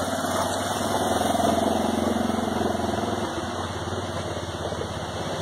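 Off-road vehicle engine running at low revs with an even, fast pulse, rising a little about a second in and then easing off.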